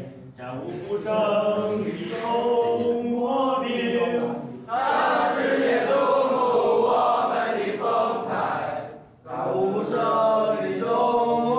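A group of young voices singing a Chinese military-style patriotic song together in unison, in phrases of held notes, with a short break between lines about nine seconds in.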